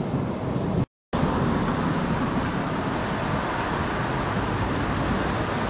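Steady road-traffic noise with no train passing, broken by a brief dead silence about a second in where the recording cuts.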